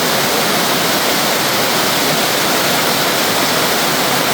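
Water cascading down a flight of steps, a steady, loud rushing.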